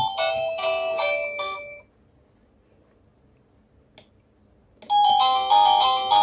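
Cacazi HYA10 wireless doorbell receiver playing an electronic chime melody that stops about two seconds in. After a silent gap broken by a single click, the next ringtone melody starts near the end.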